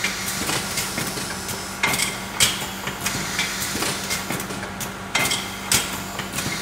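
Cutting-film coffee capsule filling and sealing machine running: a steady hum under continual sharp clicks, with a stronger pair of clacks about half a second apart coming round about every three seconds as the machine works through its cycle.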